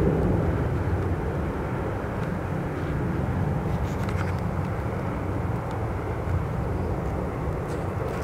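Jet engines of a Boeing airliner running after start-up, heard as a steady low rumble.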